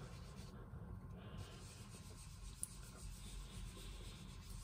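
Faint rubbing of a foam sponge dauber being worked back and forth over cardstock, blending ink.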